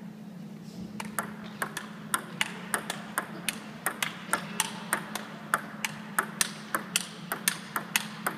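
Table tennis ball in a fast rally, clicking sharply off the rubber bats and the table about three to four times a second, starting about a second in. A steady low hum runs underneath.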